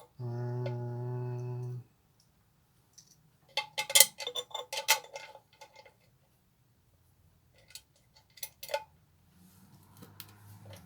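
Metal parts of a bench grinder clinking and clattering as it is put together: two spells of sharp clicks with a short ringing tone. Just before them, near the start, a steady low hum lasts about a second and a half.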